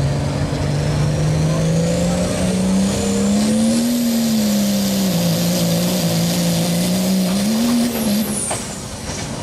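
Dodge Ram diesel pickup pulling a sled at full throttle. A steady, heavy engine note is overlaid by a high turbo whine that climbs over the first few seconds and then holds. Shortly before the end the throttle comes off and the whine drops away.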